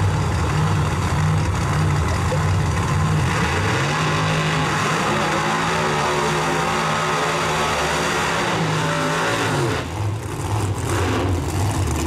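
Drag-race car engines running at the starting line. About four seconds in, one engine is revved up and held at higher revs for some five seconds, then drops back. Near the end a lower steady engine note follows.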